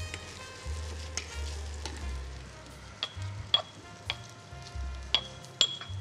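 Finely chopped onion sizzling in olive oil in a frying pan, stirred with a spatula. Several sharp clinks ring out from about halfway through to near the end.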